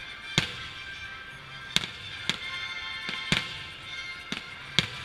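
Aerial fireworks shells bursting: about six sharp bangs at irregular intervals over a few seconds, the strongest about half a second in and near the end. Music plays steadily underneath.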